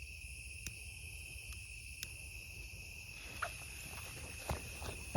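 Crickets singing in a steady, high, continuous chorus, with a few faint clicks.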